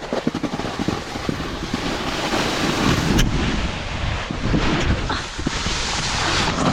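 Snowboard sliding and scraping over snow, with wind buffeting the microphone, and a single sharp click about three seconds in.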